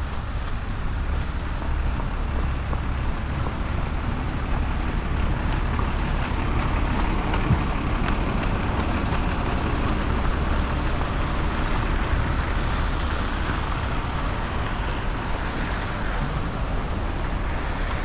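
Road traffic on a snowy city street: the tyre and engine noise of a passing vehicle swells over several seconds in the middle and fades, over a steady low rumble of wind on the microphone.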